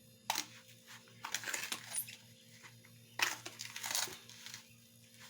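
Granulated sugar poured from a drinking glass onto grated beetroot: three rustling, hissing stretches of falling grains with a few light clicks.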